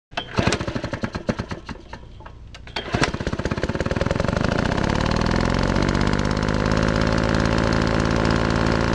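A small engine sputtering with irregular pops, catching about three seconds in and running up to a fast, steady speed.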